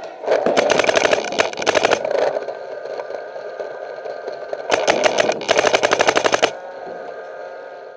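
Paintball marker firing rapid strings of shots: a run of about two seconds at the start, then two shorter bursts around five and six seconds in. A steady hum runs underneath and carries on after the firing stops.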